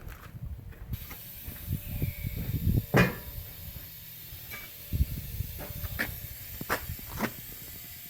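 Scattered knocks and clanks of metal forge parts being handled and set in place, the loudest about three seconds in, with several lighter knocks later.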